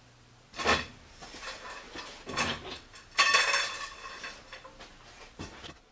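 Steel conveyor-belt rollers knocking and clinking as they are handled. The loudest clank comes just after three seconds in and rings on, fading over about a second.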